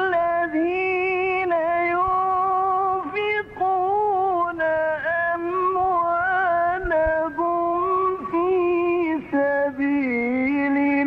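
A male Quran reciter chanting in the melodic mujawwad style, in a high register. He holds long, ornamented notes that waver and glide, with short breaks between phrases.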